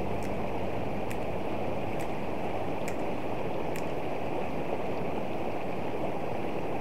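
River water flowing steadily over shallow rocks, a constant rushing noise.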